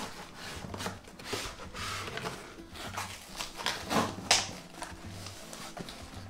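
Cardboard boxes and packaging being handled and opened: short rustles and scrapes of cardboard, with a sharp knock a little after four seconds in. Soft background music plays underneath.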